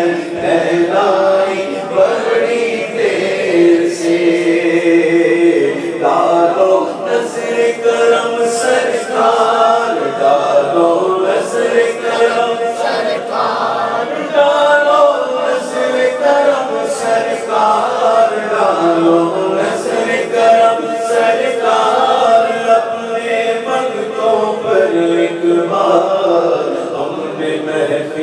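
A man singing an Urdu naat, an Islamic devotional song, into a microphone, drawing out long held notes.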